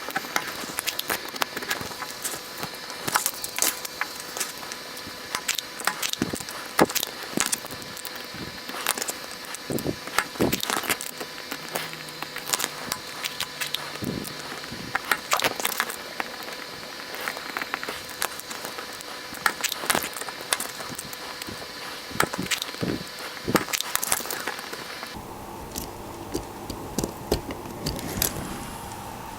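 Irregular plastic clicks and snaps of mechanical keyboard switches being pressed down and levered up out of the keyboard plate, several close together at times.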